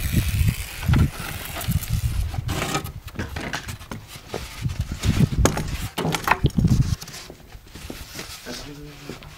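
Knocks and scraping as rigid foam insulation boards are picked up and laid on the foundation, several sharp knocks around the middle, over an uneven low rumble that drops away about seven seconds in.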